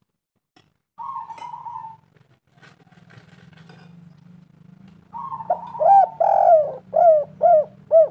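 Spotted dove cooing: one drawn-out coo about a second in, then a quick run of about five arched coo notes starting around five seconds in. A faint low hum runs beneath.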